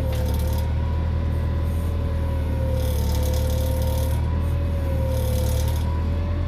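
Forklift running with a steady low hum and a whine that wavers slightly in pitch. Two short bursts of hissing noise come about three seconds and five seconds in, while the forks lift a press roller a few inches.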